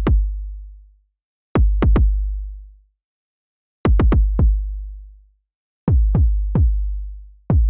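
Synthesized 808-style kick drum from FabFilter Volcano 3, made by a low-pass filter in self-oscillation tuned near 50 Hz with its cutoff swept down by an envelope. Each hit starts with a sharp click and drops quickly in pitch into a low boom that dies away, played in short groups of two or three hits. The shortened decay and release with deep cutoff modulation give this different kick character.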